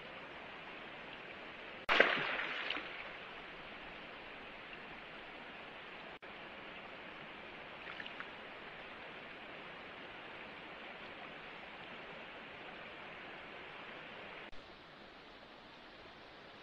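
Steady rushing noise of running water, with a sudden loud noise about two seconds in that dies away over about a second.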